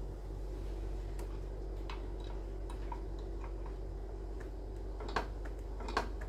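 Faint metallic clicks and taps as a scooter's centre stand is fitted with its new return spring, with two sharper clicks about five and six seconds in, over a steady low hum.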